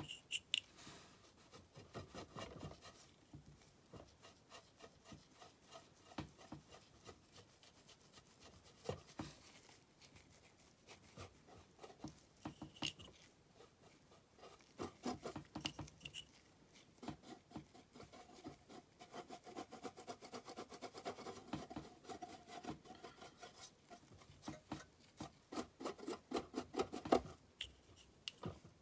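Brush bristles scrubbing weathering chalk onto the side of a model boxcar: quiet, rapid scratchy strokes in repeated bursts.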